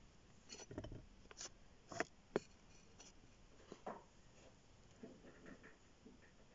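Near silence broken by faint, scattered clicks and knocks, with two sharper clicks a little after two seconds in.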